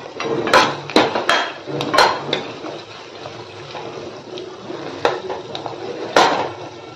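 A metal spoon stirring diced cauliflower stalks and potatoes in a kadhai, scraping and clinking against the pan. A run of sharp knocks comes in the first couple of seconds, and another one near the end.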